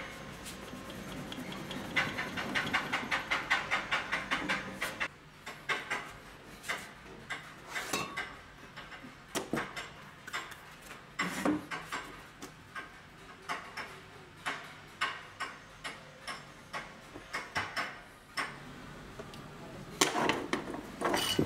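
A cloth rubbed quickly back and forth along an old drill's power cord, then small clicks and taps as a plastic electrical plug and its rubber cord sleeve are handled on a workbench, with a closer cluster of clicks near the end.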